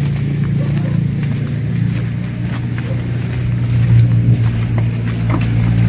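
Car engine idling, a steady low hum, with scattered footsteps and scuffs on the dirt.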